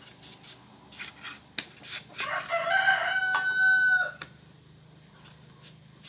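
A rooster crows once, about two seconds in: one long call that rises, then holds steady and breaks off. Light knife taps on a plastic cutting board sound around it as papaya is sliced.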